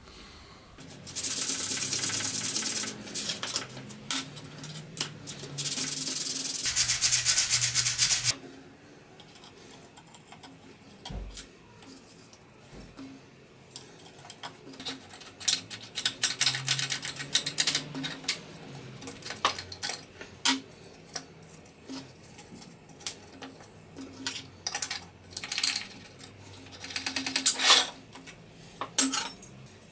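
Small metal clicks, scrapes and rubbing as a steel door latch for a luggage-compartment door is handled and fitted by hand on a metal workbench. Near the start there are two loud stretches of steady rushing noise, each about two seconds long.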